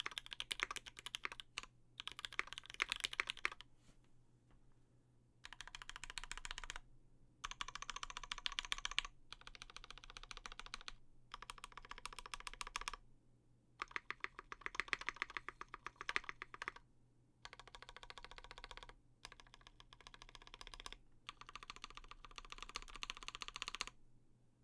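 Typing on a Percent Studio Skog-Reboot mechanical keyboard: lubed Gateron Ink linear switches on an aluminium plate with GMK doubleshot keycaps, fast keystrokes in bursts of a second or two with short pauses between.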